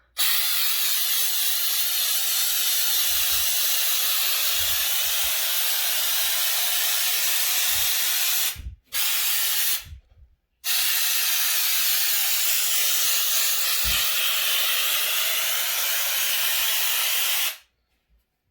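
Homax aerosol wall-texture spray hissing out of the can's nozzle onto a wall: a long spray of about eight seconds, a brief burst, then another spray of about seven seconds that cuts off sharply.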